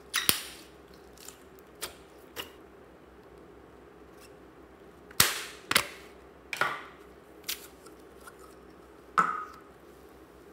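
Slime squeezed and kneaded by hand, giving a scattered series of sharp pops and clicks as trapped air bursts out, about nine in all, with the loudest near the start, around five seconds in, and near the end.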